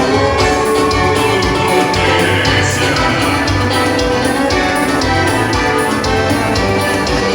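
Live dance band playing music with a steady beat.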